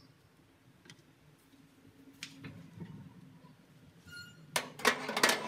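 Metal baking tin clattering against the oven's wire rack as it is slid into a countertop oven: a run of sharp metallic knocks and scrapes starting about four and a half seconds in, after a few soft spatula taps.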